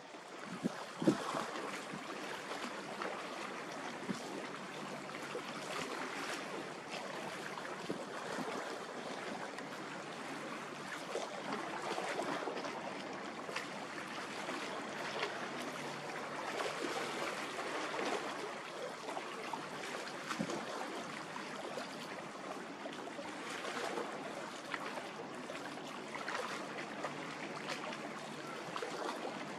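Seawater lapping and splashing in a steady wash of noise, with one sharp knock about a second in.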